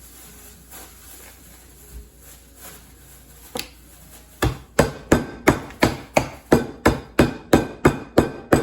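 Pistachios in a plastic bag being pounded to crush them: one knock, then from about halfway in a rapid series of about a dozen hard blows, roughly three a second.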